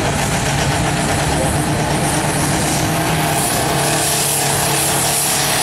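Compact diesel pulling tractor's engine running steadily under load at the start of a pull, with a rushing noise building from about halfway through.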